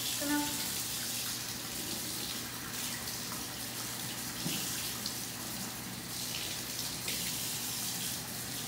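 Kitchen faucet running steadily into a stainless steel sink, with brief splashes as hands are rubbed and rinsed under the stream.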